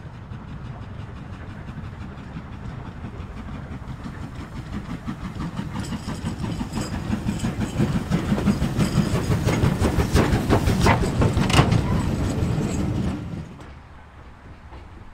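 LMS Stanier 8F 2-8-0 steam locomotive approaching and passing close by with a regular rhythmic beat that grows steadily louder. It is loudest with sharp knocks about eleven seconds in, then falls away suddenly a second or so later as the engine goes by.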